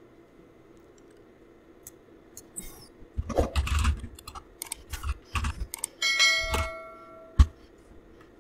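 Computer keyboard keystrokes and clicks in a quick, irregular run, starting a couple of seconds in. Near the end comes a short bell-like notification chime of a few seconds' fraction, followed by one sharp click.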